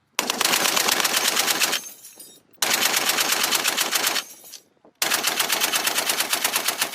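M2A1 .50-calibre heavy machine gun firing three sustained bursts of rapid, evenly spaced shots, with short pauses between them; the last burst is still going near the end.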